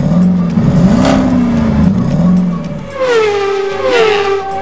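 Race-car sound effects: an engine revving up and down, then three quick sounds falling in pitch as cars speed past.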